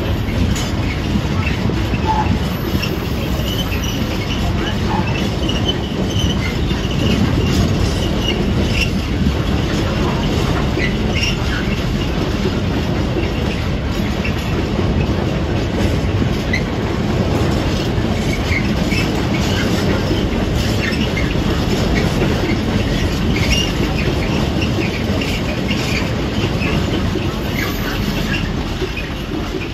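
Freight train wagons rolling past on the rails: a continuous heavy wheel noise with short, high wheel squeals and clicks scattered throughout, easing slightly near the end.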